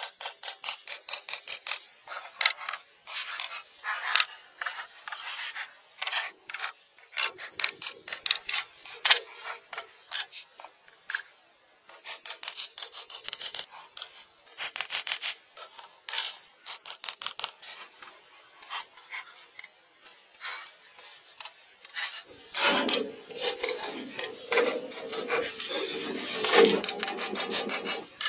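Dry rasping, scratching strokes in quick runs of several a second, broken by short pauses. From about two-thirds of the way in, a fuller, lower rubbing sound joins in.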